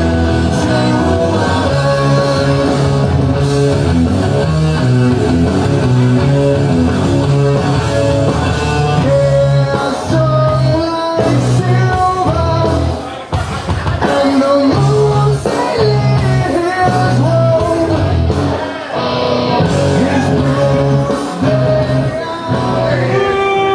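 Rock song with singing and guitar, played as a wrestler's entrance music.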